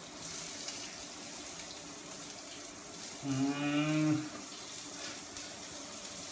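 Hot oil with mustard seeds and jeera sizzling in a kadai, a steady hiss. About three seconds in, a low hum holds one pitch for about a second and is the loudest sound.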